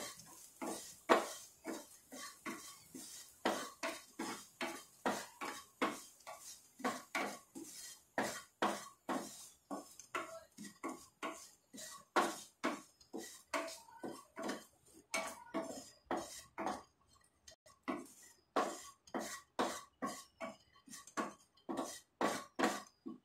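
Wooden spatula scraping and stirring chopped nuts around a pan in quick repeated strokes, about three a second, with a short pause about two-thirds of the way through.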